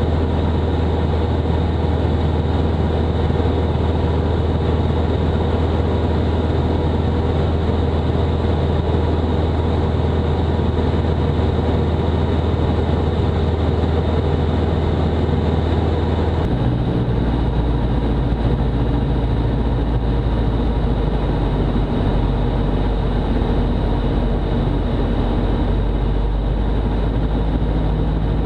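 Robin DR400-180's four-cylinder Lycoming engine and propeller droning steadily, heard from inside the cockpit in cruise. About two-thirds of the way in it cuts abruptly to a lower-pitched drone at reduced power on short final for landing.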